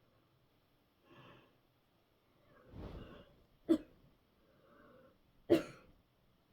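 A person coughing hard: two short, sharp coughs a little under two seconds apart, with audible breaths drawn before and between them.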